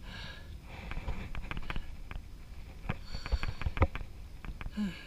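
Irregular sharp clicks and knocks from a spinning reel and rod being worked against a hooked fish, the loudest near the end. Sniffing breaths near the start.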